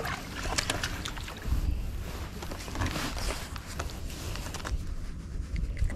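Spinning reel cranking and a hooked crappie splashing at the surface as it is brought to the boat, then irregular clicking and rustling as the fish is handled and unhooked, over water lapping against the boat.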